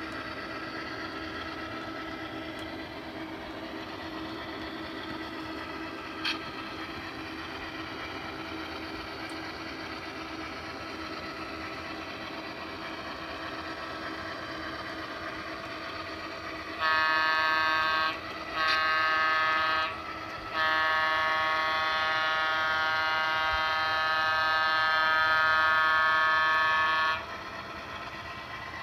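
Sound decoder in an HO-scale Athearn Genesis FP7 model diesel locomotive playing a steady diesel engine drone. About two-thirds of the way through, the horn sounds: two short blasts, then one long one.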